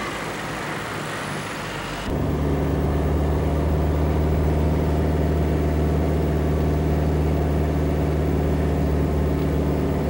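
Street traffic noise, then about two seconds in a sudden switch to the steady low drone of a vehicle engine running at an even speed.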